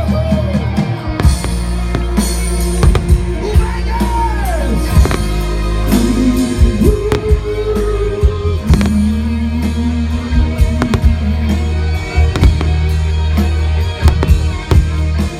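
Loud rock music with a singing voice, with sharp fireworks bangs breaking through at irregular intervals.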